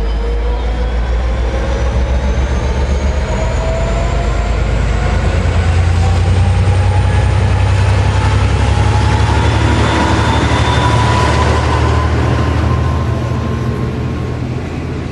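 V/Line N class diesel-electric locomotive pulling away under power and passing close by, its engine drone swelling while a whine rises steadily in pitch as it gathers speed. The carriages follow, rolling past on the rails.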